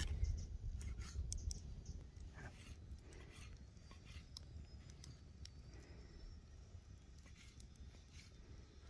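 Chef's knife slicing raw lamb offal on a wooden stump chopping block: irregular taps of the blade hitting the wood and short scrapes. A low rumble at the start fades over the first couple of seconds.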